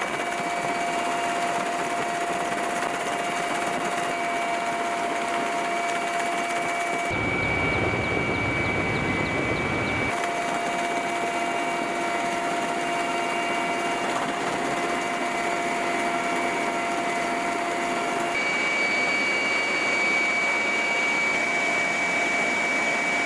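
Military helicopter's turbine engines and rotor heard from inside the cabin with the door open: a steady high whine over loud rushing noise. For a few seconds in the middle the sound switches to a deeper rumble without the whine.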